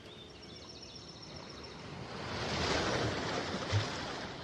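A whooshing swell of noise, like a wave or a gust, that builds about two seconds in, peaks and fades away, with a short low thump near the end.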